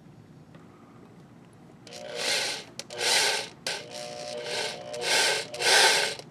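An electric drill running in reverse, a left-hand drill bit grinding into a hard steel bolt broken off in a flywheel. It starts about two seconds in and comes in repeated short bursts with a steady motor whine under them.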